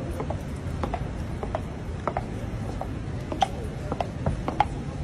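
Hard-soled footsteps clicking on stone pavement, about two a second and uneven, over a steady low street rumble.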